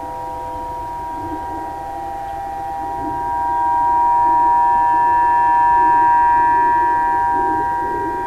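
Outdoor tornado warning sirens sounding a steady chord of several held tones during a siren test. The sound swells louder about three seconds in and eases off again near the end.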